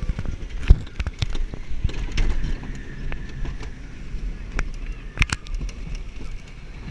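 Wooden roller coaster car running along the track: a continuous low rumble with frequent rattling clatters and knocks from the wheels and car, which the riders call old and rickety. A sharp knock comes about a second in and another loud clatter about five seconds in.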